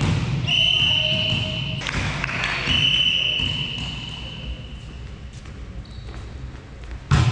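Two steady, high-pitched referee's whistle blasts, the first about a second long and the second about two seconds long, echoing in a sports hall. A sharp thud comes near the end, typical of a volleyball being struck.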